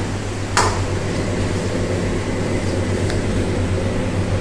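Steady low drone of a commercial kitchen's wok range, with one sharp metal clink about half a second in and a fainter tick later.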